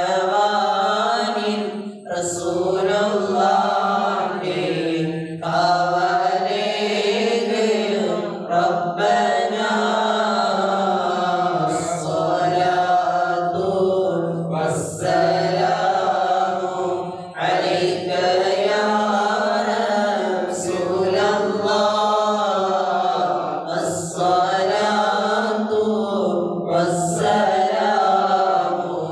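Mawlid recitation chanted by men, one leading into a microphone: devotional verses in praise of the Prophet sung as one long melodic line with wavering pitch. It comes in phrases a few seconds long, with short breath breaks between them.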